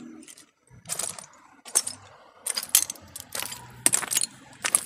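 Footsteps on a debris-strewn concrete floor: irregular sharp clinks and crunches, about two or three a second, starting about a second in after a brief near-quiet.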